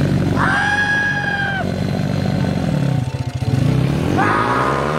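Small dirt bike's engine running, dipping briefly about three seconds in and then revving up with a steadily rising pitch as the bike pulls away. Near the start a person lets out a long held shout.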